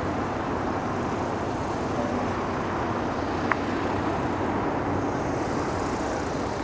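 Engine noise of an approaching Boeing 747-8F on low approach: its four GE GEnx-2B jet engines make a steady rumble, with a thin whine growing in from about five seconds in as the jet closes. A single short click about halfway through.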